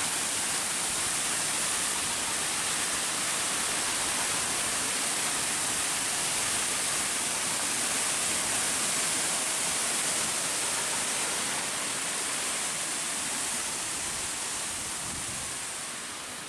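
Water rushing steadily out of a reservoir dam's open sluice gates and splashing into the irrigation canal below, easing off somewhat near the end.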